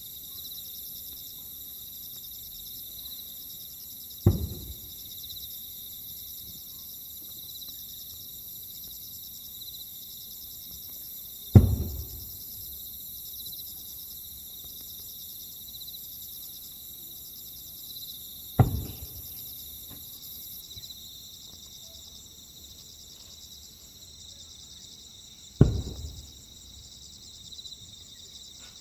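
Fireworks shells bursting overhead: four deep booms about seven seconds apart, each trailing off in a low rumbling echo. A steady high insect chorus chirrs underneath.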